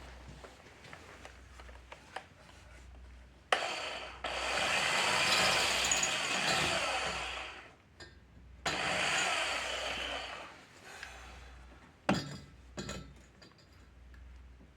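A small power grinder cutting slag out of a weld on a steel exhaust pipe, run in two bursts of a few seconds each, with a few sharp knocks between.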